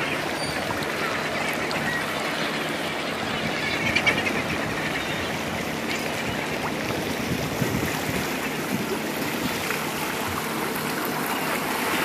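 Steady rush of water and wind from a boat moving over choppy sea, with a low hum under it and occasional calls from a large flock of seabirds, the clearest about four seconds in.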